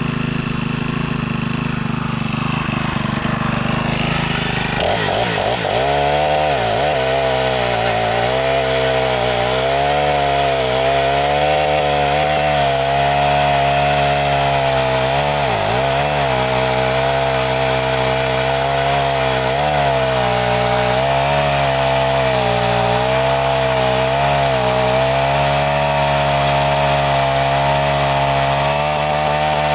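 Ferrex 49cc four-stroke chainsaw running hard and cutting wood, its engine note wavering and dipping briefly in pitch several times as it takes the load. For the first few seconds it runs at a lower, steadier note before the high note sets in about five seconds in.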